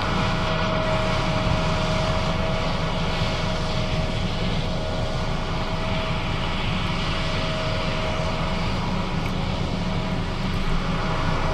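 John Deere S660 combine running steadily: a deep, even engine drone with a steady whine above it.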